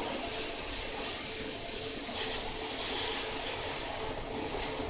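Water spray hissing onto a red-hot steel ring as it turns in a ring rolling forging machine: a steady rushing hiss over the machine's low hum.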